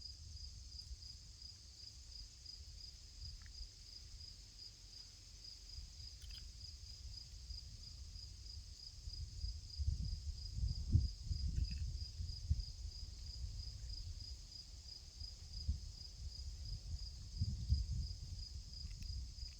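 A cricket chirping steadily, about four high chirps a second, over a low rumbling noise that grows louder about halfway through.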